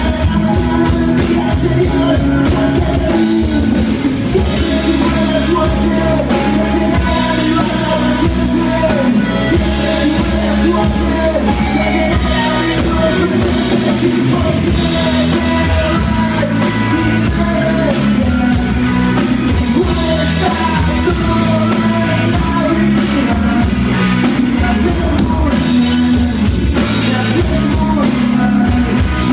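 Live rock band playing loudly: electric guitars, bass guitar and drum kit, with a male singer singing at the microphone.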